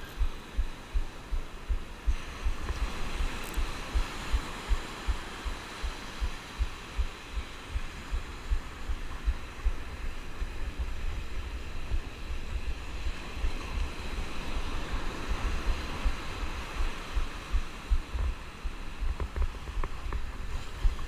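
Handling thumps, about two or three a second, from a Daiwa Coastal baitcasting reel being cranked close to the microphone, over a steady wash of surf.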